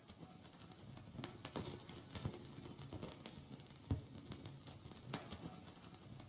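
Vinyl record surface noise: faint hiss with scattered crackles and clicks from the groove, and one louder pop about four seconds in.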